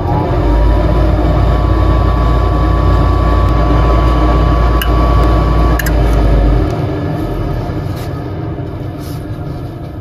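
Goodman gas furnace running with a steady low hum and a high motor whine, powered up by pressing its new door switch. About six seconds in there is a click, the whine cuts off, and the running noise winds down.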